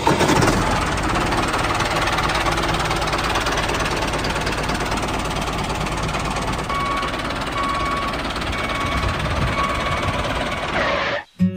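A machine engine running steadily with a fine, even rattle, with faint short beeps about once a second in the second half; it cuts off suddenly near the end.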